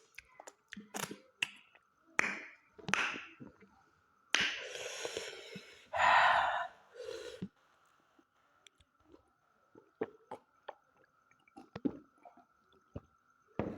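Close-miked eating sounds: wet mouth clicks and smacks while chewing mutton, with a breathy rush of air about four seconds in and a louder one right after it.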